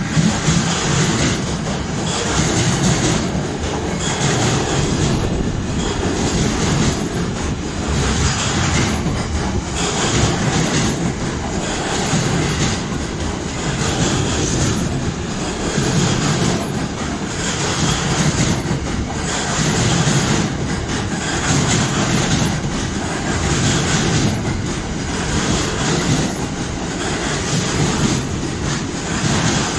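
Container flat wagons of a freight train rolling past at speed: a steady rumble of wheels on rails with a regular clickety-clack as the wheelsets run over rail joints.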